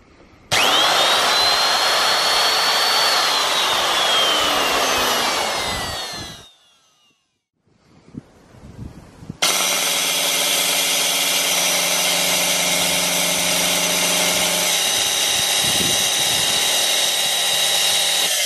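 Handheld power tool's brushed electric motor run twice. First it starts with a rising whine and is switched off after about three seconds, winding down. After a pause it runs again steadily with a many-toned hum. This is a bad motor that may sound a bit rough, with lots of sparking at the brushes.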